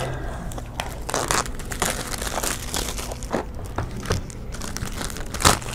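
Small clear plastic bag crinkling in the hands as it is handled, in irregular crackles, with a sharper crackle near the end.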